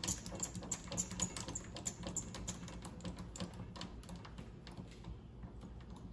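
Rapid, irregular light clicks and taps of lathe parts and tooling being handled and adjusted on a mini lathe while the setup is checked, thinning out and stopping about four to five seconds in.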